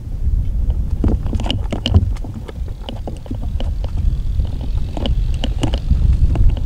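Wind buffeting the microphone: a steady low rumble with scattered crackles and pops.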